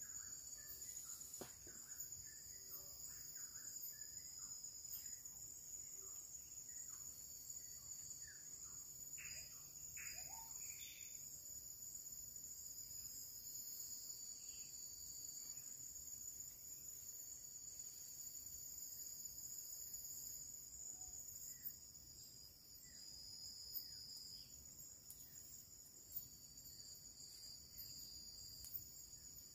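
Steady, faint, high-pitched chorus of forest insects, with scattered short chirps over the first dozen seconds and a few soft knocks near the end.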